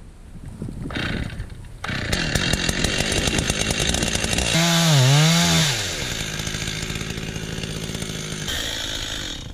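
Chainsaw running at high throttle. About five seconds in, its engine note dips in pitch and climbs back, as the saw bogs briefly under load in the cut, then runs on steadily.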